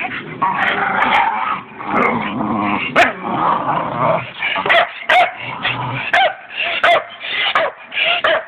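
Staffy dogs play-growling as they bite and tug at a tyre swing, the growl running on for the first few seconds, then breaking into a string of short barks and yips, about two a second.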